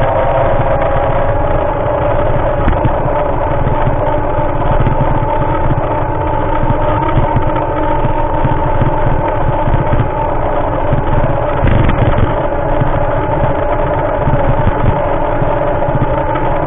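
Motorbike engine running steadily at cruising speed, with wind rumble on the microphone.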